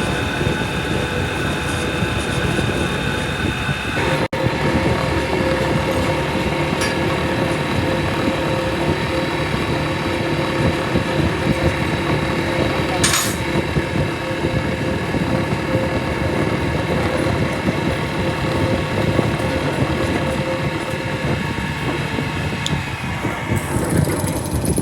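Workshop machine running steadily with a constant whine. The sound breaks off for an instant about four seconds in, then continues with a slightly different pitch.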